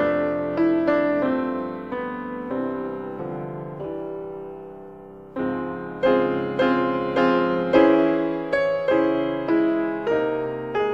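Slow piano music in a series of struck, decaying notes. A phrase dies away on a held chord, and about five seconds in a new phrase starts louder.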